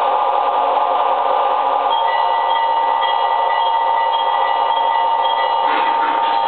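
MTH model diesel locomotives running, with a steady rumble from the train and its electronic diesel sound. From about two seconds in until near the end, the locomotive's sound system rings its bell, a repeating ringing tone.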